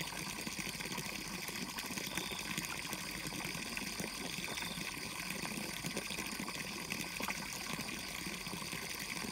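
Water streaming from a hose pipe and splashing steadily into a pond.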